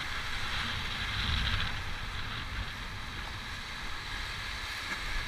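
Rushing whitewater of river rapids churning around a raft, a steady hiss that swells slightly about a second in, with wind rumbling on the microphone.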